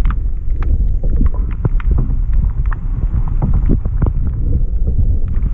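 Water rushing past a submerged camera housing on a moving kayak: a muffled, steady low rumble, with many small clicks and knocks scattered throughout.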